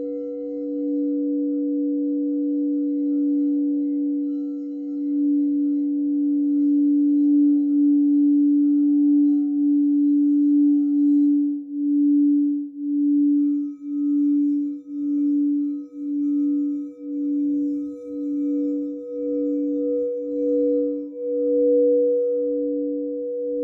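A singing bowl ringing with a sustained, steady low tone and a fainter higher overtone. From about halfway the tone pulses in a slow wobble, roughly one beat a second.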